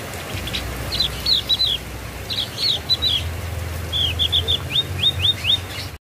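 Javan grey-throated white-eye (opior jawa) singing: three quick phrases of short, high chirping notes, the last ending in four rising upslurred whistles.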